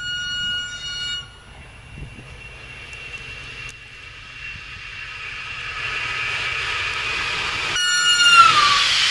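Passenger train approaching and passing on electrified track, a rushing noise building steadily with a steady high whine over it. About eight seconds in, the locomotive's horn sounds loud, its pitch dropping as the train goes by. A tune cuts off in the first second.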